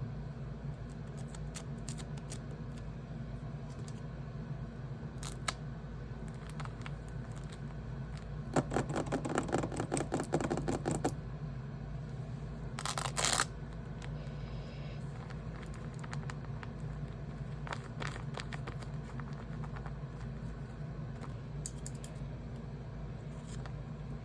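Paper being handled at close range: scattered crisp clicks and crinkles, a run of rapid crackling about nine to eleven seconds in, and a short rustle around thirteen seconds, over a steady low hum.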